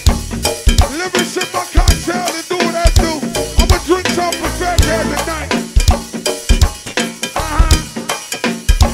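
Go-go band music with a steady drum-kit beat and percussion under pitched instruments.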